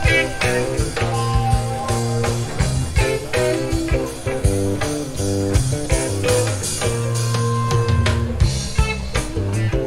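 A rock band playing live: electric guitar lines over bass and drum kit.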